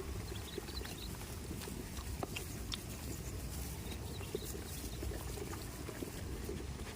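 Goats moving about, with scattered light clicks and taps over a steady low rumble and no bleating.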